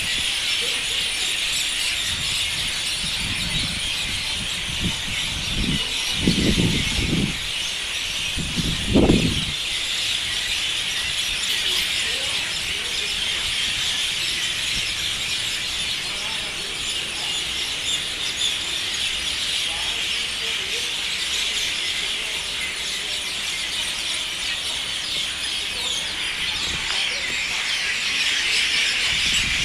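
A large flock of birds calling all at once, a steady, dense, high-pitched chatter with no single call standing out. A few low rumbles come in about six and nine seconds in.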